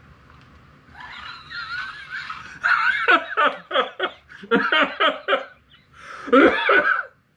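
Men laughing: a high wheezing giggle about a second in, breaking into short rhythmic bursts of laughter, with one more burst near the end.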